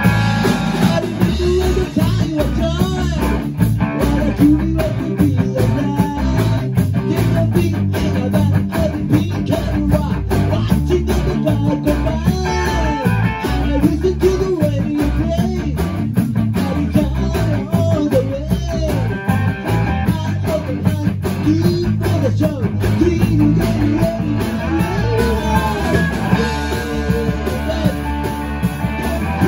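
Rock band playing live with two electric guitars, bass guitar and drums, and a man singing lead into a microphone.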